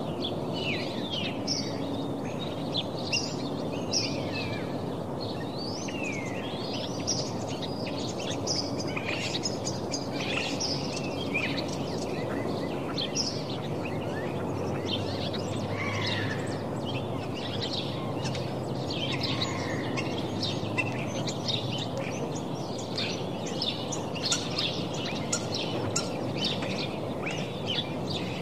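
Many small birds chirping and twittering continuously, overlapping calls over a steady low background noise.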